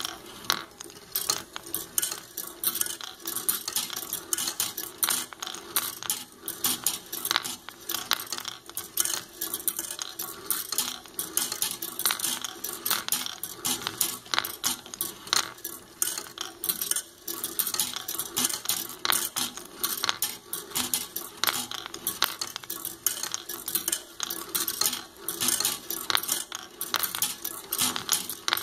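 Steel balls rolling and clicking along the brass-rod tracks of a wooden marble machine, a dense, irregular metallic clatter of many small clinks and ticks as balls drop, roll and strike the rails.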